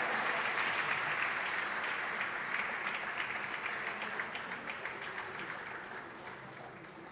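Audience applauding a point in a table tennis match, the clapping dying away over several seconds.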